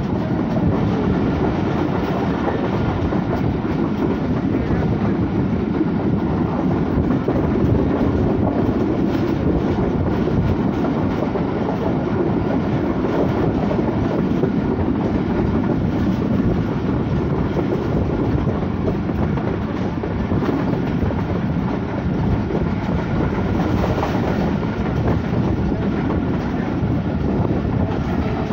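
Hazira Express passenger train running at speed, heard from inside a coach by the window: a steady rumble of wheels on the track with scattered clicks from the rail joints.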